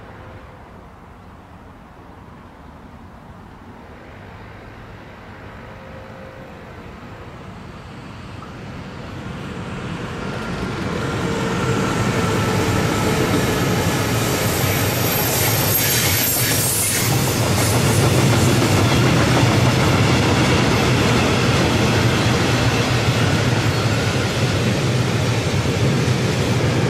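Freight train of timber wagons approaching and rolling past: the rumble of wheels on the rails grows over the first dozen seconds, then holds steady and loud, with thin high squealing tones from the wheels above it.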